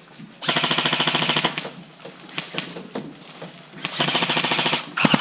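Airsoft electric gun firing two full-auto bursts of about a second each, a fast even rattle of shots, one about half a second in and one near the end, with a few single clicks between them.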